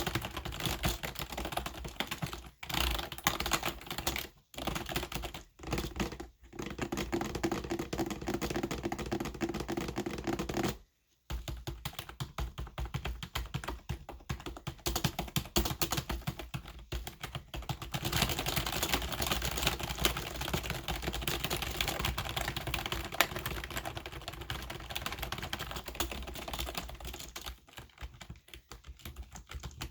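Computer keyboard typed on fast and hard: a dense, continuous clatter of key clicks, broken by a few short pauses and one half-second stop about eleven seconds in.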